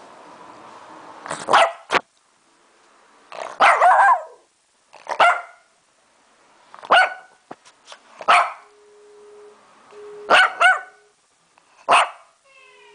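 Lhasa Apso barking at close range: a string of short, sharp barks, roughly one every one to two seconds, some coming in quick pairs.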